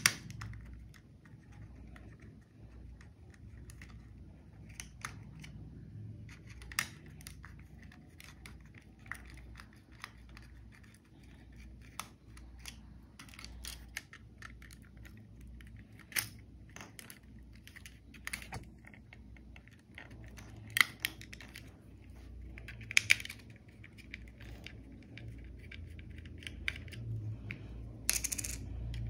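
Irregular clicks, taps and rattles of an E88 drone's plastic body and arms being handled and worked apart by hand, over a low steady hum. The sharpest clicks come past the middle and near the end.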